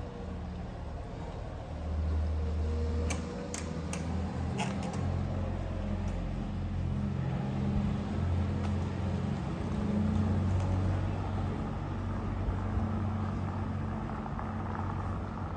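Town street ambience: a steady low rumble, with a few sharp clicks about three to five seconds in.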